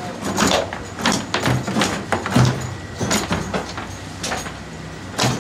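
Foosball play on a wooden table: about eight sharp knocks and thuds at uneven spacing as the plastic figures on steel rods strike the ball and the rods are shoved and spun against the table sides.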